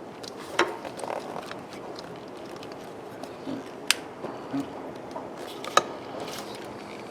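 Hands handling small plastic electrical connectors and clips: a few scattered sharp clicks, three of them louder, with light rustling and scraping over a steady faint hiss.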